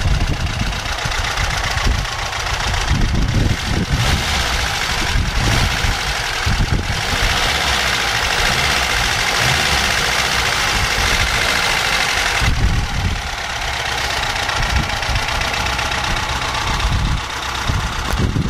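VAZ-2104 petrol engine running steadily, louder through the middle stretch and easing off about twelve seconds in.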